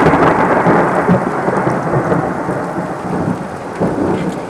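Thunder rumbling over heavy rain, loudest at the start and slowly fading, with a second, smaller swell near the end.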